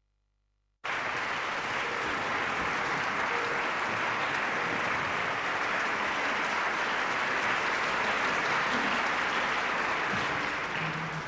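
Audience applauding in a concert hall: dense, steady clapping that starts abruptly about a second in and dies away near the end.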